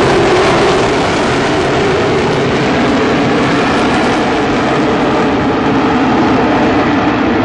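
AV-8B Harrier's Rolls-Royce Pegasus jet engine at high thrust while the jet hovers on its downward-pointed nozzles: a loud, steady jet roar, its low drone sinking slightly in pitch in the second half.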